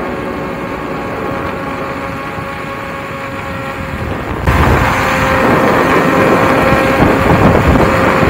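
Wind rush and road noise from riding an electric unicycle at speed, with a steady whine running underneath. About four and a half seconds in, it turns suddenly louder and rougher, with heavy wind buffeting on the microphone.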